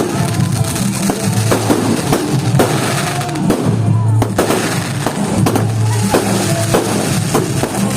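Loud music with a bass line and a steady drum beat.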